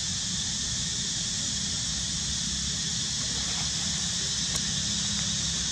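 Steady hiss over a low rumble, with a couple of faint ticks.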